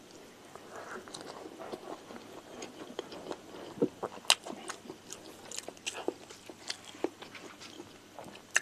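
Close-miked chewing of a mouthful of rice eaten by hand, with wet mouth sounds and scattered sharp clicks, the loudest about four seconds in.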